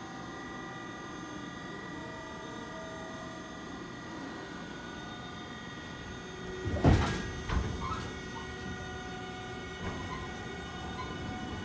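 Steady hum of a JR Shikoku 8000 series electric train standing in a station, with several fixed tones from its onboard equipment. About seven seconds in there is a loud thump, followed by a smaller one about half a second later.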